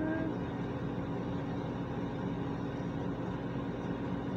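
Steady hum and hiss of a ventilation fan running without change.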